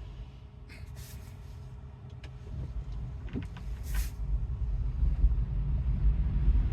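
Inside an electric Tesla pulling away from a stop: low tyre and road rumble that builds steadily over the last few seconds, with a couple of short clicks along the way.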